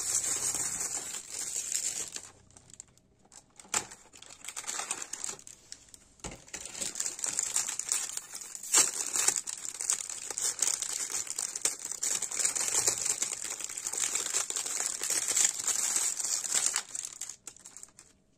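Plastic cookie wrapping crinkling and rustling as the packet is opened and handled. The crinkling breaks off about two seconds in, with a single click in the pause, then resumes steadily from about six seconds and stops shortly before the end.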